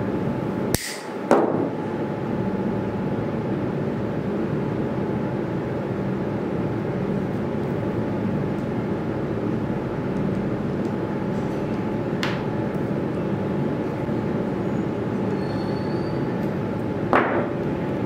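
Steady room hum and hiss throughout, with a few small sharp clicks: about a second in, about two-thirds through and near the end, as a stainless-steel clasp wire is handled with pliers and set against a plaster teeth model.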